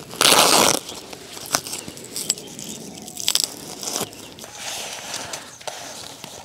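Canvas car side awning being handled: a loud ripping sound about half a second long just after the start, like a strap being pulled free, then scattered rustles of fabric and a few light clicks.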